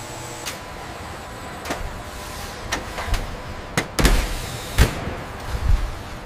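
Steady industrial machinery hum with a string of sharp metallic knocks and clanks, two of them loudest about two-thirds of the way through.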